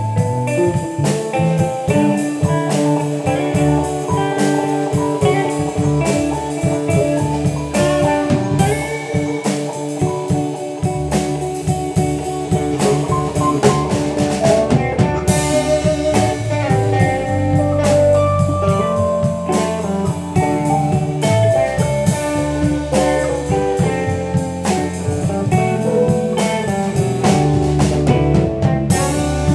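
Blues music: guitar playing over a bass line and a drum kit, with no break.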